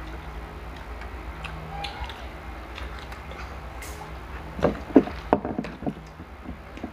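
People eating off bamboo skewers at a table: scattered small clicks and mouth sounds, with a cluster of sharper ticks about five seconds in, over a steady low hum.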